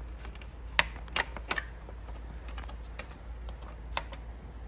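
Plastic side trim piece of a Steelcase Gesture chair being handled and fitted back onto the chair, making a string of light clicks and taps. The sharpest three come close together about a second in.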